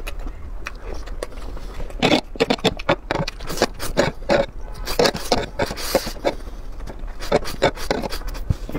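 Close-up eating sounds: noodles slurped and chewed in a run of wet smacks and crackles, thickest around the middle, with a metal fork scraping across a metal baking tray.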